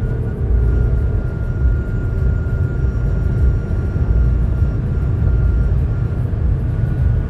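BMW X5 G05 driving above 200 km/h: a heavy, steady low rumble with a faint high whine over it that fades out near the end. This is the unusual noise the owner hears at that speed.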